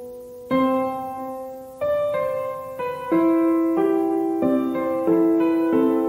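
Background piano music: gentle chords, a new chord struck about every half second to second and left to ring.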